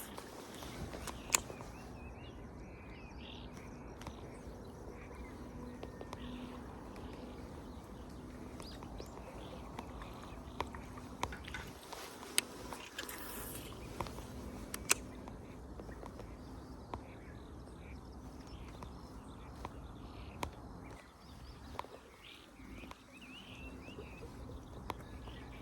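Small birds chirping over a steady low background, with a few sharp isolated clicks.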